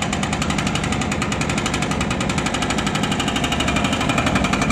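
Excavator-mounted hydraulic breaker hammering into the reinforced concrete of a building frame, a continuous stream of rapid, even blows.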